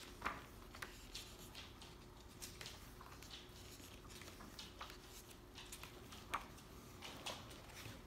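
Pages of a large hardcover book being turned and handled: soft paper rustles and light taps at irregular intervals, over faint room tone.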